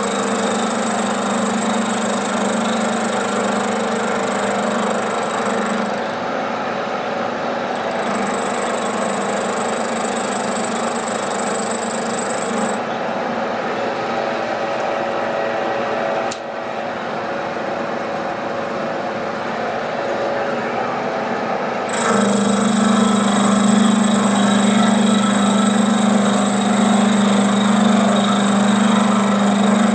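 Bridgeport milling machine running with a carbide end mill taking a light skim cut on the side of a crosshead: a steady motor and spindle hum with cutting noise. A sharp click about sixteen seconds in, and it runs louder from about twenty-two seconds on.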